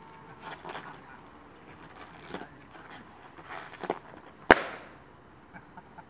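A balloon bitten by a macaque bursts with one loud, sharp pop about four and a half seconds in, after a few softer scuffs as the monkey grips and gnaws it.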